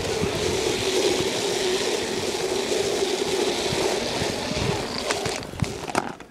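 Flat fire hose dragging and scraping over asphalt as a pre-connect line is pulled out and laid down, a steady rough scraping that stops about five and a half seconds in, followed by a few sharp clatters.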